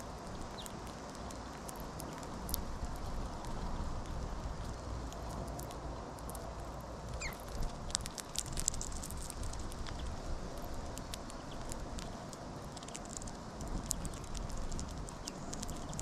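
Greenfinches and other small finches pecking and cracking sunflower seeds on the grass right at the microphone: a scatter of small sharp clicks and taps that bunch up in places, with a brief thin bird call once or twice.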